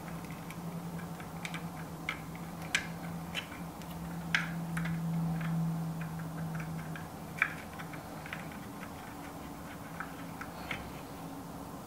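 Scattered light clicks and ticks of small metal screws and parts being handled as gold screws are fitted into a new Baratza Esatto load cell, over a steady low hum that fades about seven seconds in.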